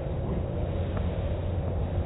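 Automatic car wash running on the other side of a window: water spray pelting the glass over the machinery's steady low rumble.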